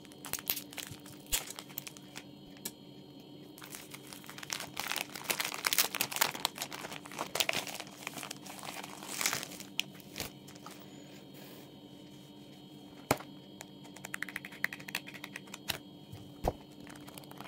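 Clear plastic shrink wrap being peeled off a paperback sticker book and crumpled by hand, crinkling densely through the middle of the stretch. A few separate sharp clicks and taps come before and after it as the book is handled.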